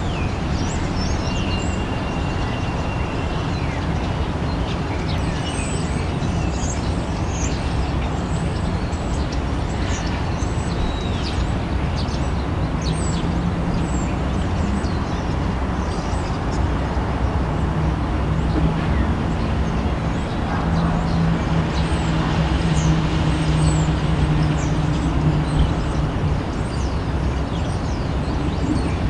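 Steady urban traffic noise with a low engine hum that swells and then fades in the second half, and short high chirps scattered over it.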